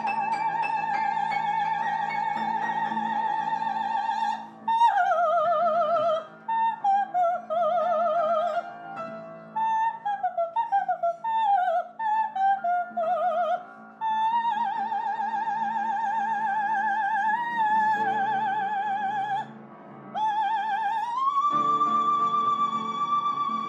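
A soprano sings an operatic passage with wide vibrato over piano accompaniment. She holds a long note, then sings a string of short falling phrases and another held note, and near the end rises to a high note that she holds out.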